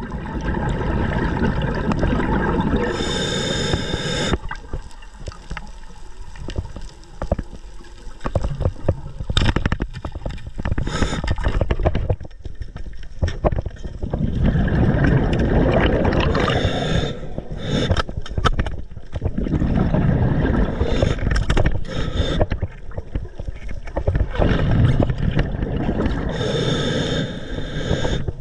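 Muffled underwater sound through a diver's camera housing: water rushing and gurgling past it in swells that come and go every few seconds, with scattered knocks and scrapes.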